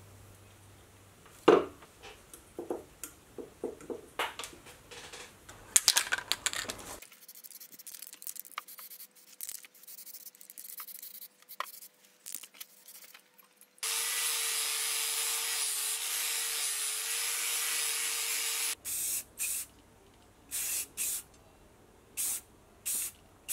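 Aerosol spray-paint can spraying in one steady hiss of about five seconds, then in a string of short bursts, as the sheet-metal parts are painted. Before that come light clicks and handling noises from crimping spade connectors onto switch wires.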